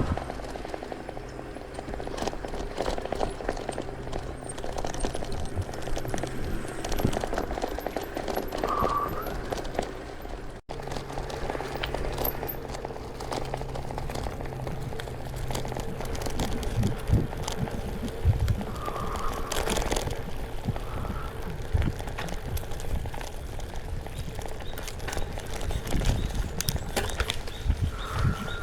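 Bicycle riding along a dirt trail: the bike rattles and the tyres run over the ground, with irregular knocks and thumps from bumps.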